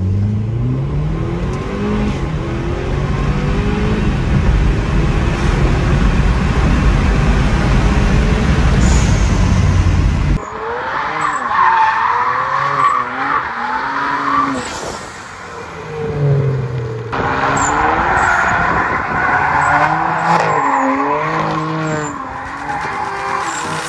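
Car engine revving and climbing in pitch under acceleration. About ten seconds in it cuts abruptly to tyres squealing and skidding, wavering on and off.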